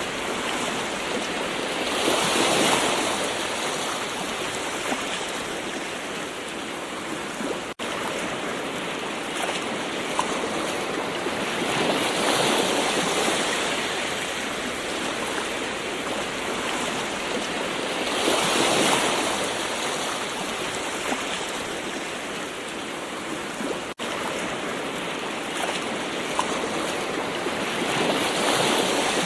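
Gentle ocean waves washing in, with a constant rush of surf that swells louder four times, every six to ten seconds. The sound drops out for an instant twice.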